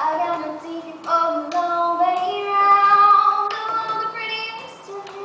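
A girl singing a melody with held notes into a microphone, with a few sharp knocks and claps of a cup-game rhythm, a cup being tapped and struck on a table.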